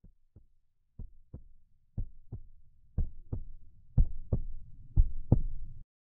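Heartbeat sound effect: six double lub-dub thumps at a steady pace of about one a second, each a little louder than the last, stopping just before the end.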